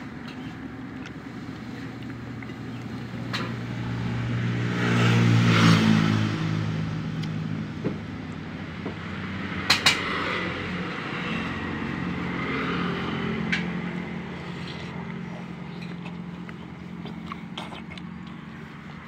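Road traffic passing close by: a motor vehicle's engine grows louder, passes about five to six seconds in and fades, with more engine noise after. A couple of sharp clicks come about ten seconds in.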